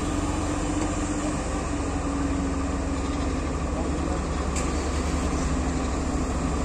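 Heavy cargo truck engine running as the loaded truck pulls slowly past, a steady low rumble.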